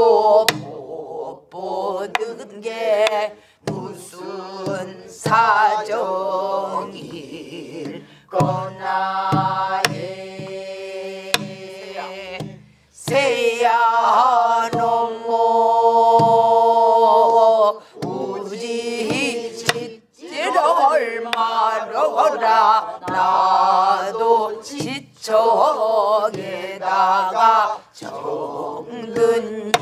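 Namdo (southern Korean) folk song sung by a woman leading and a group of voices joining in, with long held, wavering notes. Strokes on a buk barrel drum keep the rhythm.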